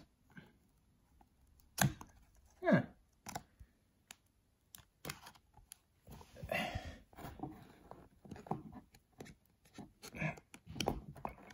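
Fingers working a Blu-ray disc out of a tight slot in a cardboard digipak: soft scattered taps, scrapes and rustles of card, with a longer rubbing slide about six and a half seconds in. The disc is stuck fast in its slot.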